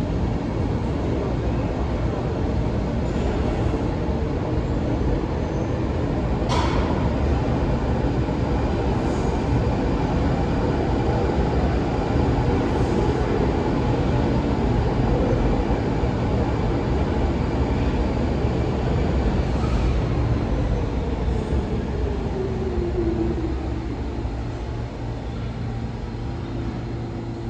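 New York City subway train running through the station: a steady loud rumble of wheels on rails, with one sharp clack about six and a half seconds in. Near the end a falling whine is heard and the rumble eases off.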